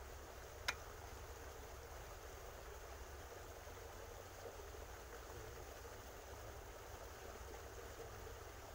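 Faint steady background hiss with a low rumble underneath, and one sharp click about a second in.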